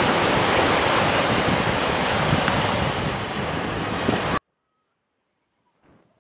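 Sea waves breaking and washing up on a sandy beach, mixed with wind noise on the microphone; the sound cuts off suddenly about four seconds in.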